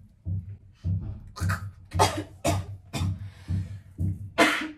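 A woman coughing in a string of short, sharp coughs, the loudest near the end, after breathing in ground cinnamon. Background music with a steady beat runs underneath.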